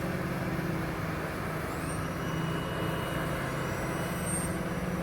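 Heavy diesel engine running steadily at constant speed, a low even drone.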